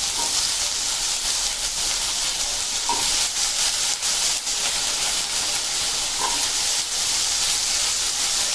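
Water-soaked potato pieces frying in hot ghee in a pan: a steady sizzling hiss with a few small pops, loud because of the water clinging to the potatoes.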